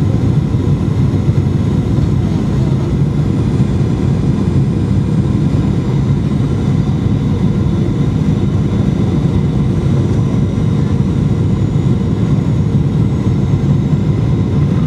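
Steady cabin noise of a jet airliner descending to land, heard from inside the passenger cabin: an even, deep rush of engine and airflow noise with faint steady tones above it.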